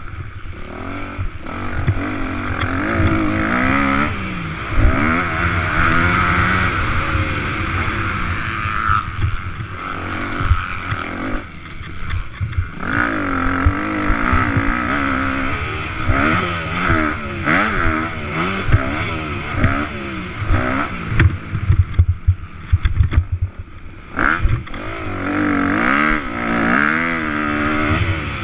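Motocross bike engine heard from on board, revving up and falling back again and again as the rider accelerates, shifts and rolls off for corners, with short low thumps from the rough track. It eases off briefly a little past two-thirds of the way through, then picks back up.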